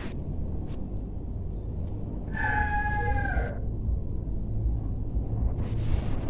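A rooster crows once, a single call of just over a second starting a little past two seconds in, over a steady low rumble.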